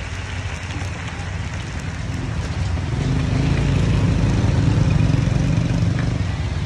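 A motor vehicle's engine running close by, its low rumble growing louder to a peak about four to five seconds in, then easing. Beneath it is a faint sizzle of coconut batter frying in a hot cast-iron mold pan.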